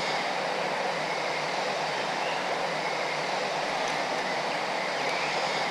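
Steady rushing of a small river's current, an even water noise that keeps on without a break.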